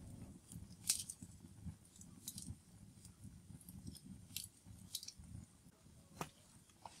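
Wood fire crackling faintly, with irregular sharp pops over a low rumble.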